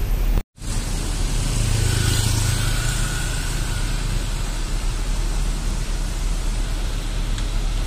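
Traffic noise with vehicle engines running. A steady low engine hum stands out for a couple of seconds, after the sound cuts out briefly about half a second in.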